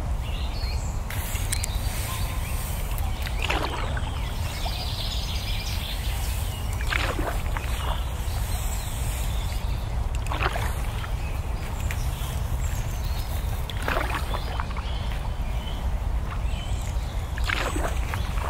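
Oars of a wooden rowboat dipping and pulling through the water: five splashing swishes about three and a half seconds apart, over a steady low rumble.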